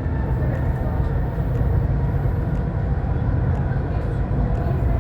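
Dubai Metro train running between stations, heard from inside the carriage: a steady low rumble with a faint motor whine above it.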